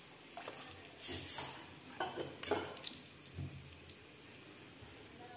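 Metal ladle scraping and clinking against a wok while scooping fried breadcrumbs out of hot oil, the oil sizzling. A louder scrape comes about a second in, then several short clinks.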